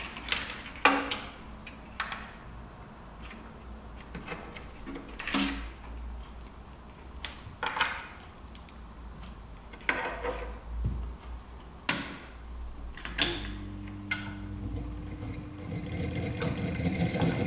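Scattered clicks and knocks of test leads and banana plugs being handled and pushed into terminal sockets. Near the end a louder, more continuous sound with some held tones builds up.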